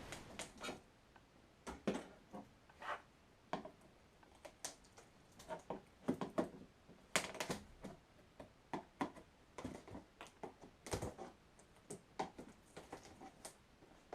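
Irregular light taps and clicks, a few a second at uneven spacing, some sharp and some duller.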